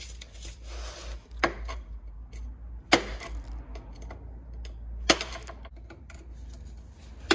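Hand tools working on an engine's connecting-rod cap: a few sharp metallic taps and clicks, one to two seconds apart, over a low steady hum.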